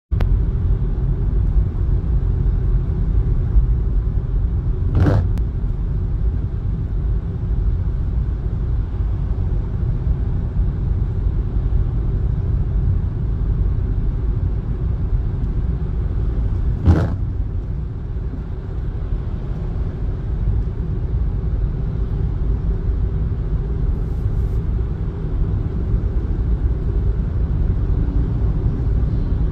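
Steady low road rumble of a car driving on a wet road, heard from inside the cabin. Two brief sharp clicks stand out, about five seconds in and again near seventeen seconds.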